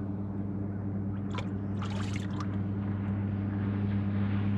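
Boat motor running with a steady hum that slowly grows louder, with brief water splashing about one and a half to two and a half seconds in.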